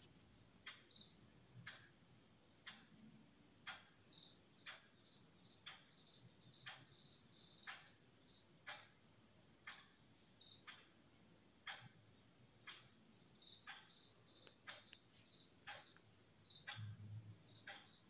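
Faint, regular ticking at about one tick a second, with a faint high whistle coming and going.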